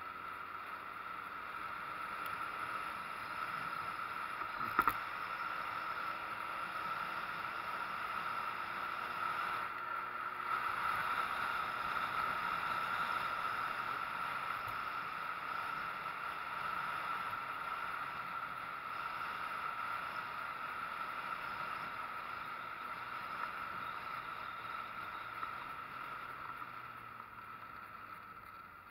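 Street motorcycle riding along, heard as a steady rush of wind noise on the camera with the engine faint underneath. A single sharp click comes about five seconds in.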